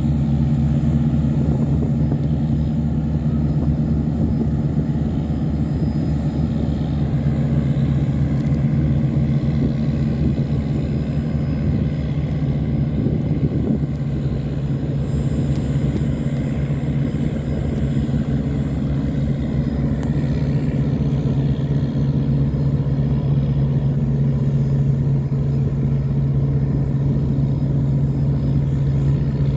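Diesel engines of motor tugboats running steadily under heavy load, a deep, even drone, as they tow a train of cargo barges upstream against a strong flood current.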